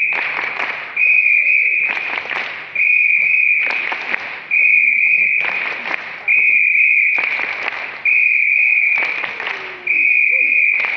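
A steady high-pitched tone alternating with loud bursts of circus audience noise. The pair repeats evenly about every two seconds, each burst starting suddenly and fading.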